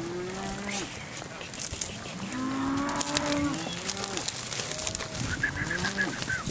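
Several cattle mooing, one low call after another, with some calls overlapping.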